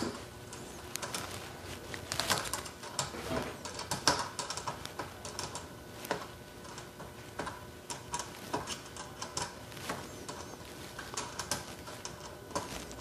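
Irregular light metallic clicking and ticking as a washer, used as a makeshift choke wrench, turns a screw-in Remington choke tube down the freshly tapped fine threads of a shotgun barrel clamped in a vise.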